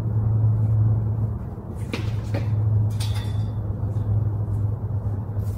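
A steady low hum, with a few light clicks or knocks about two to three seconds in.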